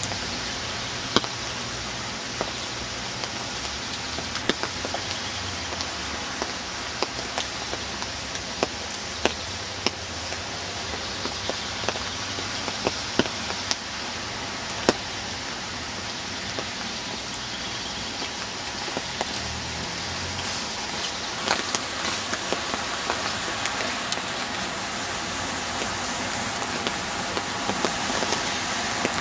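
Steady rainfall, an even hiss broken by irregular sharp taps of drops landing close by.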